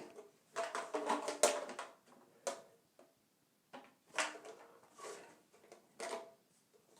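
Pipe pieces being handled and fitted, giving a series of light knocks and clatters with short ringing tones, spaced irregularly.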